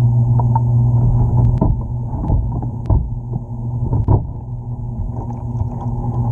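Recorded fish sounds: a steady low hum with several overtones, with short grunts or knocks scattered through it.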